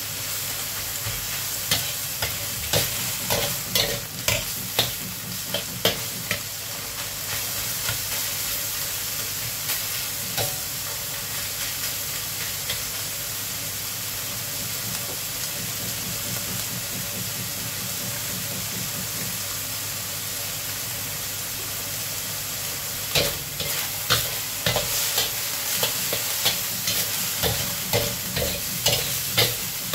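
Minced pork sizzling in oil in a wok while it is stir-fried to break it up and brown it, with a metal spatula scraping and clacking against the wok during the first several seconds and again from about two-thirds of the way through. In between there is only the steady frying sizzle.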